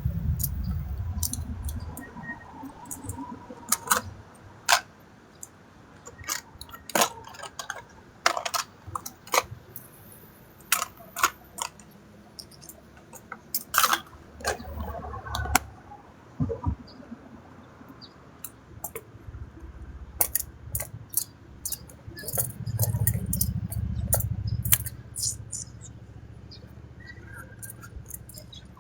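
Irregular sharp clicks and clinks of small hard objects, with a low rumble twice.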